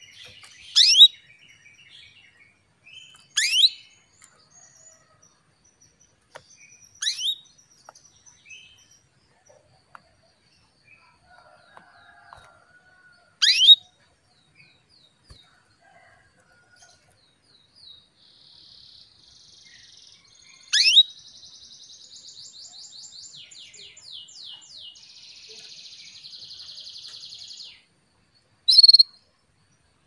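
Female domestic canary calling: about six loud, short chirps that sweep sharply down in pitch, a few seconds apart, with a long rattling trill from about two-thirds of the way in until shortly before the end. These are a hen's calls to a male, used as a lure to bring a male canary into song.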